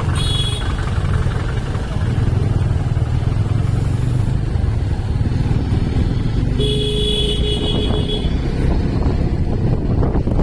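Vehicle engine running with a steady low rumble, and a horn sounding once for about a second and a half past the middle.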